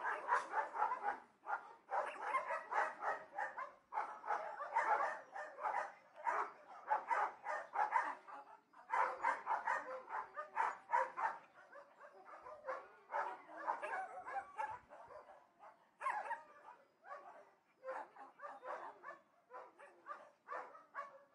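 Dogs barking at a distance: rapid runs of barks, several a second, in bouts broken by short pauses, growing sparser about halfway through.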